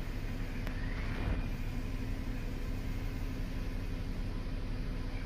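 Engine idling: a steady low hum over an even rumble.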